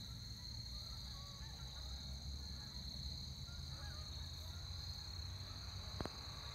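Geese honking faintly, a scattering of short calls through the first four seconds or so, over a steady high-pitched drone and a low rumble; a single click about six seconds in.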